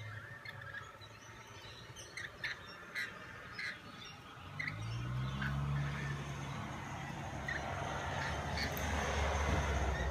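Rainbow lorikeets giving short, shrill chirps, one every second or so. About halfway through a low rumble sets in and grows louder toward the end.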